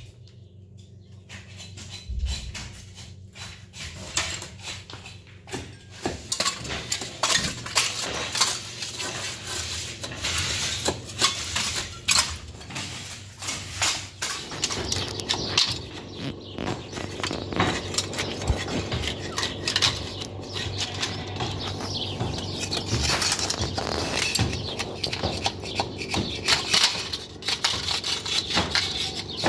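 Metal tools scraping and chipping old plaster off a wall: a busy run of scratches, knocks and metallic clinks that picks up after about six seconds.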